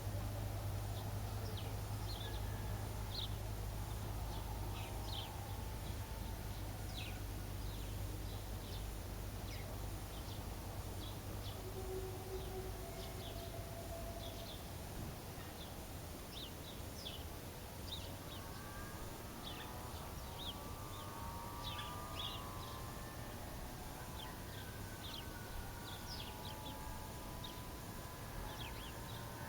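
Outdoor ambience: birds chirping over a low steady rumble. In the second half a distant small engine is heard, its pitch rising and falling.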